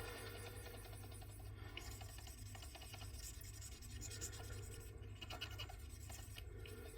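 Faint, continuous scratching and scrubbing against the car-alarm remote's small circuit board, cleaning off dirt and solder flux with isopropyl alcohol.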